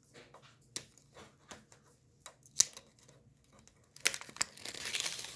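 Fingers picking and tapping at the edge of a cardboard packaging card, giving scattered small clicks. About four seconds in they give way to a longer burst of crinkling as the packaging is worked open.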